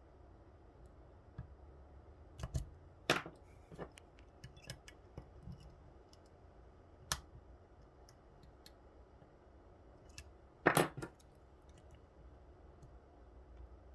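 Small metallic clicks and scrapes of a lock pick working the pins of an Assa Twin 6000 euro cylinder under tension, coming irregularly, with the loudest clicks about three-quarters of the way through.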